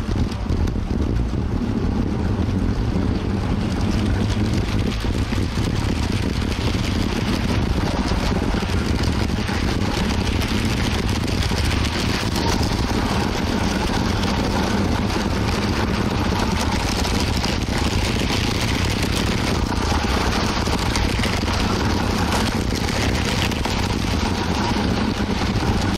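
LEGO City train running on plastic track: a steady rumble of the electric motor and plastic wheels rolling over the track joints, heard close up from a camera riding along the track.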